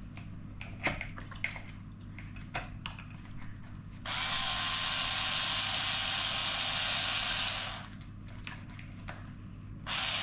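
Small parts and screws clicking as they are handled, then a small electric screwdriver running for about four seconds. It stops just before eight seconds in and starts again near the end.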